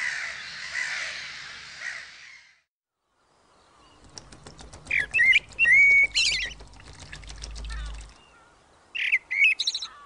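Black-headed gulls calling harshly as a colony, fading out about two and a half seconds in. After a brief silence, a common blackbird sings fluty, whistled phrases about five seconds in and again near the end, over a low rumble.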